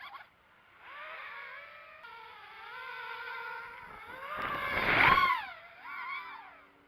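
Eachine Wizard X220 racing quadcopter in flight, its brushless motors and propellers whining and changing pitch up and down with the throttle, loudest and fullest about five seconds in, then fading out shortly before the end.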